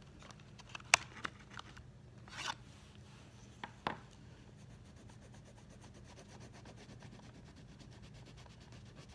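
Coloring on paper: faint, rapid back-and-forth strokes scratching across the page, with a few sharp clicks and a short scrape in the first four seconds.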